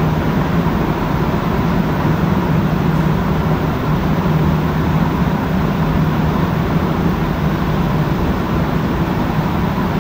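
Montreal Metro MPM-10 Azur rubber-tyred train heard from inside the car as it rolls along the station platform: a steady rumble with a constant low hum.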